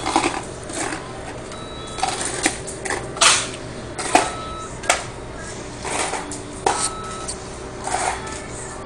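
Loose coins, mostly pennies, clinking and sliding on a countertop as they are gathered and sorted by hand, in irregular clatters.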